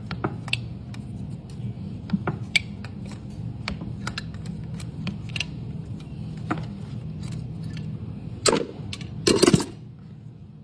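Farrier tools working on a horse's hoof: scattered sharp clicks, snaps and cracks over a steady low hum, with two louder scraping cuts near the end.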